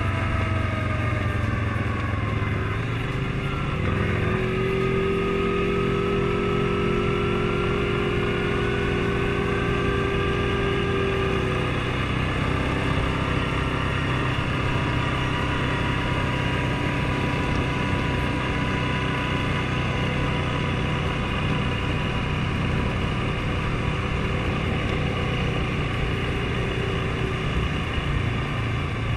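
Suzuki King Quad 750 ATV's single-cylinder engine running under way. The note drops over the first couple of seconds, rises again about four seconds in as it picks up speed, then holds a steady cruise.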